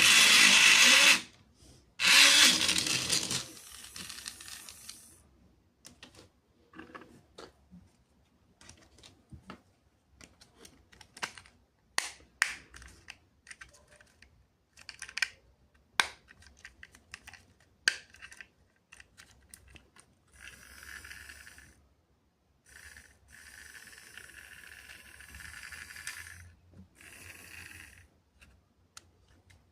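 Plastic toy parts and packaging being handled: two loud rustling bursts at the start, then scattered clicks and taps.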